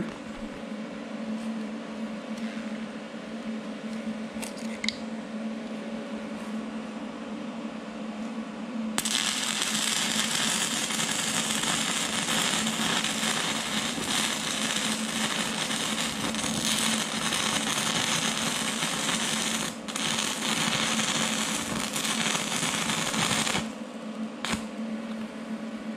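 Stick welding with a 6011 rod at about 70 amps on a Vulcan OmniPro 220: a steady hum, then about nine seconds in the arc strikes and crackles steadily, breaks off briefly near twenty seconds, and stops a couple of seconds before the end.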